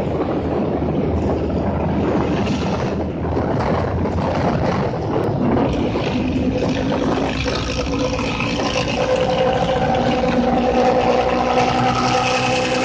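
Intercity bus's diesel engine running with a deep growl ('ngorok'), noisy and rough at first, with a steady pitched drone coming in about halfway.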